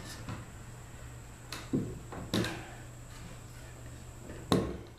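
Wooden knocks and clicks of a 2x4 lumber frame being shifted by hand and bumping against the 4x4 legs: a few light clicks, then several sharper knocks, the loudest near the end.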